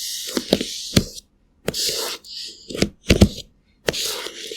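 Makeup-application ASMR sound effects: short bursts of brushing, scratchy hiss broken by several sharp taps, each burst cutting off abruptly into silence.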